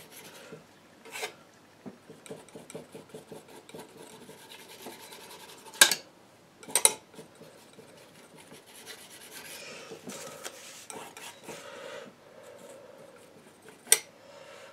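Steel palette knife scraping and dabbing oil paint: a run of short, rasping strokes. Three sharp taps stand out, two close together near the middle and one near the end.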